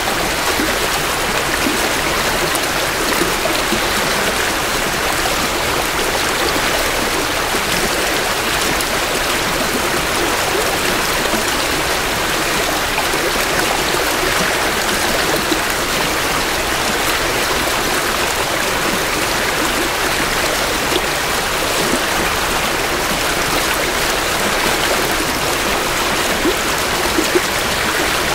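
Creek water flowing steadily over rocks, close to the microphones, during spring runoff.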